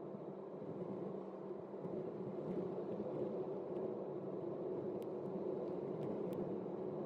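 Steady engine and road noise heard from inside a moving car's cabin, rising slightly about two seconds in, with a few faint clicks near the end.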